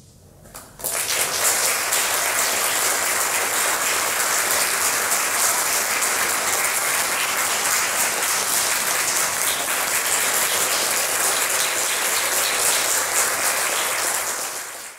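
Audience applause breaking out about a second in after a brief hush, continuing steadily, then fading out near the end.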